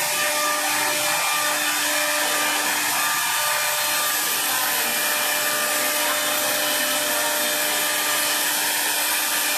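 Woodworking machinery running steadily: a constant motor rush with a hum of several fixed tones.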